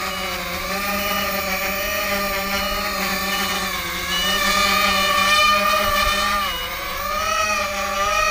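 Eachine Racer 180 tilt-rotor racing quadcopter's motors and propellers whining in flight, the pitch rising and falling with throttle and dipping about six and a half seconds in. Short beeps sound about once a second, which the pilot takes for the low-battery warning.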